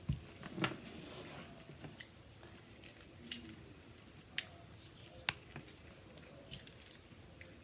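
Fidget pad being played with: a few sharp, separate clicks of its buttons and switches, roughly a second apart, with faint handling in between.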